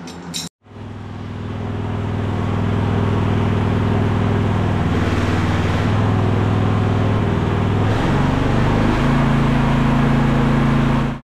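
Mini excavator engine running steadily while its auxiliary hydraulic circuit is pressure-tested for the main relief valve setting. The engine starts about half a second in and builds over a couple of seconds, deepens about eight seconds in, and cuts off abruptly near the end.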